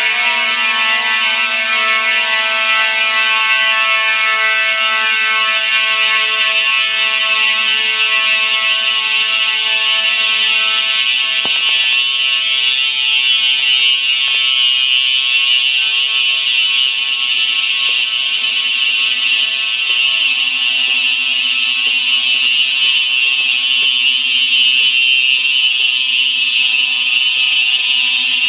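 Fire alarm sounding steadily without a break, a loud buzzing tone.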